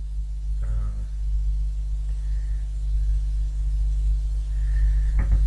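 Steady low hum in the recording. A short bit of the man's voice comes about a second in.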